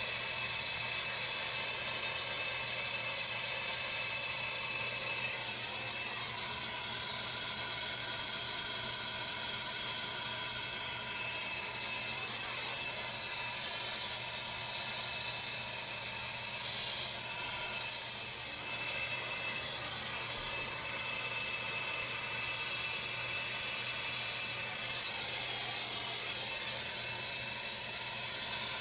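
Gas soldering torch flame hissing steadily while heating a copper ball valve joint.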